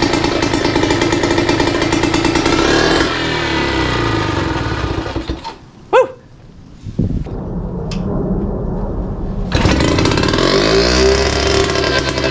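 1963 British Seagull two-stroke outboard motor running out of the water on its first start with a new ignition coil. About halfway through the running sound drops away sharply, with one brief sharp sound in the lull, then comes back up to full running.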